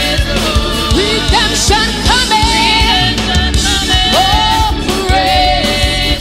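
Live gospel praise music: a woman's voice sings sliding, bending runs into a microphone over organ, bass and drums.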